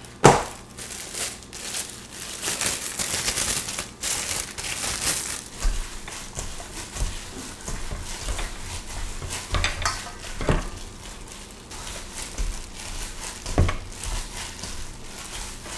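Ground beef and mashed potato being kneaded by a plastic-gloved hand in a stainless steel bowl: irregular wet squishing and glove crinkling, with a few sharp knocks, the loudest just after the start.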